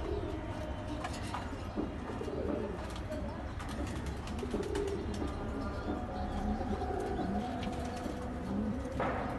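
Pigeons cooing over and over, deep low coos that waver up and down in pitch, over a steady low hum. A short burst of noise comes near the end.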